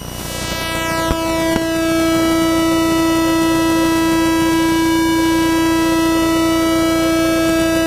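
Quadcopter drone's motors and propellers running with a steady, even-pitched hum. It gets louder over the first two seconds, then holds steady.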